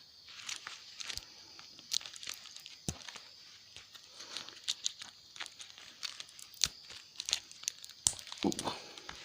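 Tape and metal tabs being peeled off salvaged 18650 lithium-ion cells: crinkling and tearing with many scattered sharp clicks.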